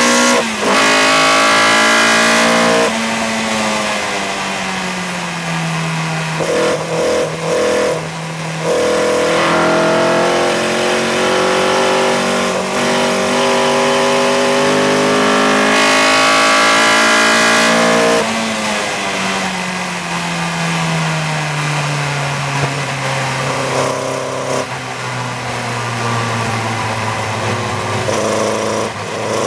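Seven-style open-cockpit race car's engine heard on board under load at high speed, with several lifts off the throttle in the first half. From about the middle on, the engine note falls steadily as the car slows down hard, ending in a lower, choppier part-throttle sound.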